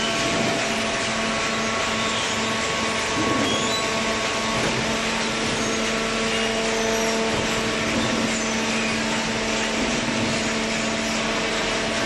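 Hydraulic waste-paper baling machinery running: a steady mechanical drone with a few constant humming tones over a noisy whoosh.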